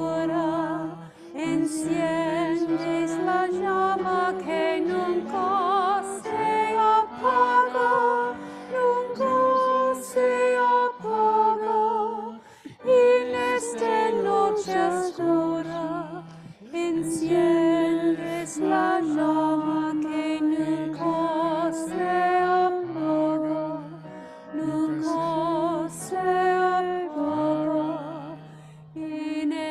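A slow hymn sung with vibrato by the church's singers, with keyboard accompaniment.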